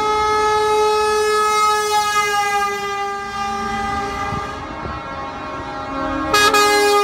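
Truck air horns held down in a long blast as lorries drive past, the tone sliding slightly lower in pitch as one passes. About six seconds in, a second, louder horn at a different pitch starts abruptly.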